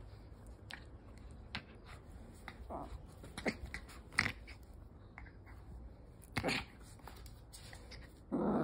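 Small dog play-biting and scuffling at a hand: scattered soft clicks and shuffles with a few short, louder huffs about three and a half, four and six and a half seconds in. A wavering, drawn-out cry starts right at the end.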